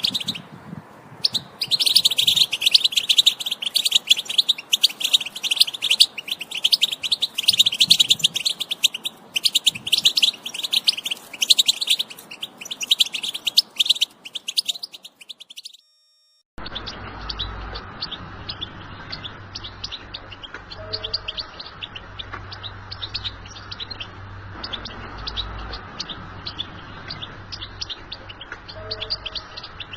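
European goldfinch song: a fast, continuous twittering with rapid trills. About halfway through, it cuts to a fainter, duller recording of the same kind of song over a steady low hum.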